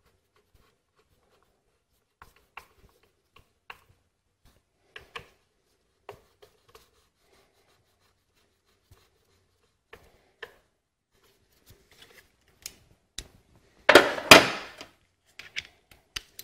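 Sparse small clicks and rubbing as the ignition coil's two mounting bolts are threaded in by gloved hands, with one louder burst of handling noise lasting about a second near the end.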